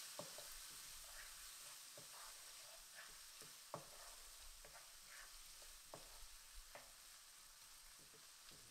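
Faint sizzling of potatoes and spiced onions frying in oil in a non-stick pan, with irregular soft scrapes and taps of a wooden spatula stirring them through, roughly one or two a second.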